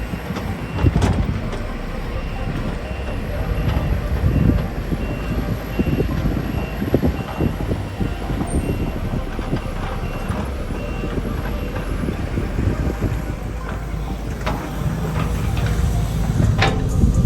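Heavy excavator engine running under load, with scattered knocks and clanks. A backup alarm beeps about once a second and stops about two-thirds of the way through.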